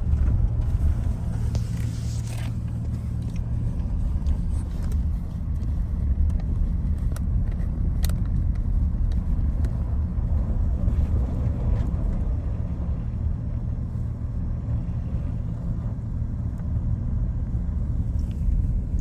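Steady low rumble of a car's engine and tyres heard from inside the cabin while driving on a mountain road, with a few light ticks.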